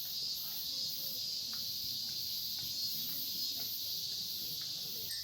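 A steady, high-pitched chorus of insects chirping, with a few faint clicks and knocks underneath.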